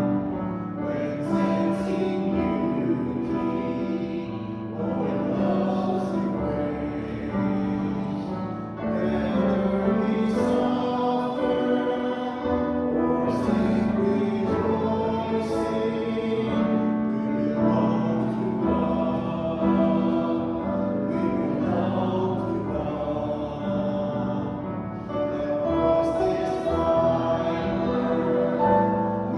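Church congregation singing a hymn in slow, held notes.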